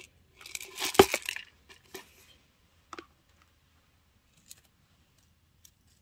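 Small hard objects being handled on a tabletop: a brief rustle with one sharp click about a second in, then a few faint ticks spread out.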